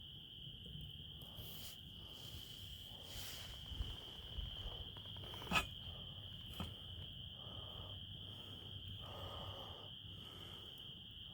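Crickets trilling in a steady, continuous chorus, with a few sharp pops from a crackling fire, the loudest about halfway through.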